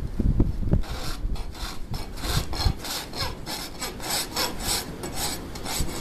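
Farrier's hoof rasp filing a horse's hoof, in steady back-and-forth scraping strokes about three a second, after a few dull knocks at the start.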